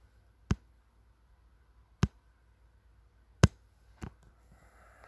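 Three sharp taps about a second and a half apart, the third the loudest, then a fainter fourth tap soon after.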